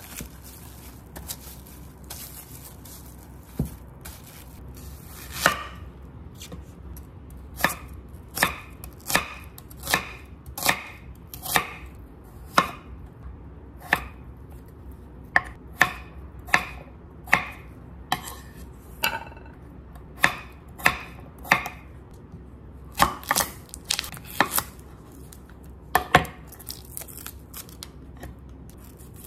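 Chef's knife cutting potato and then zucchini on a wooden cutting board. From about five seconds in, the blade knocks sharply against the board one stroke at a time, roughly one or two a second, with short pauses between runs.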